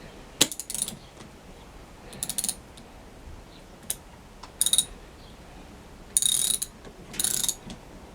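Ratchet wrench clicking in five short bursts as it is swung back between strokes, tightening a nut.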